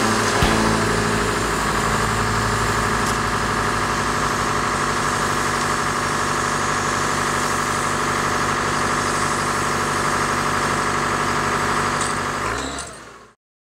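Engine of heavy lifting equipment idling steadily, then fading out near the end.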